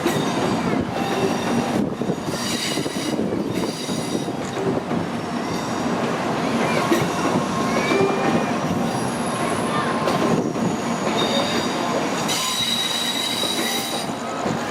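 Shinkansen train running on the track, a steady rumble of the cars with high-pitched wheel squeal that comes and goes, strongest about two seconds in and again near the end.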